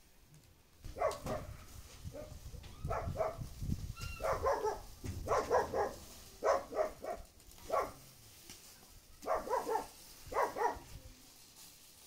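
A dog barking repeatedly, in short runs of two or three barks with brief pauses between them.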